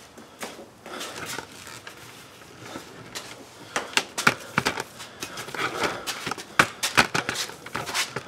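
Irregular knocks and clatter of shop gear being handled, sparse at first and growing denser and louder in the second half.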